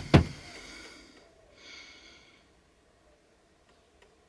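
A person breathing out once through the nose, about a second and a half in, after two sharp clicks at the very start. Otherwise near quiet, with a few faint ticks near the end.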